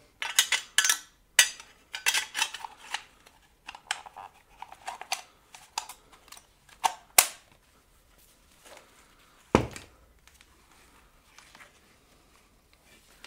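KGP-9 submachine gun's steel receiver cover and parts being handled and fitted back in place: a run of metallic clicks, scrapes and rattles, a sharp click about seven seconds in, and a heavier clack near ten seconds.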